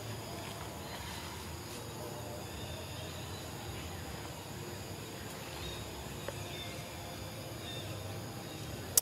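Outdoor forest ambience: a steady insect drone with a few faint, short high chirps now and then.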